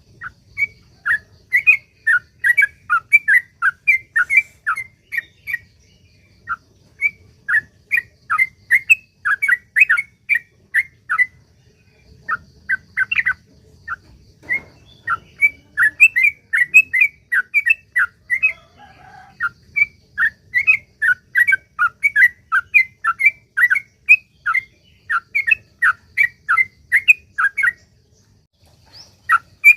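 Yellow-vented bulbul (trucukan) singing a long, rapid run of short, bubbly notes, about three or four a second, broken by a few brief pauses.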